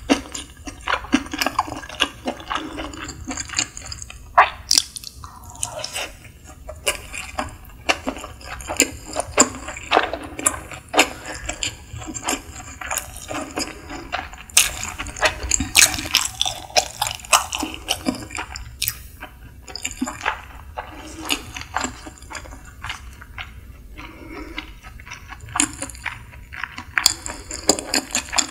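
Wet, close-up chewing and lip-smacking of a person eating sushi: a quick run of small moist clicks and squelches, broken by short pauses.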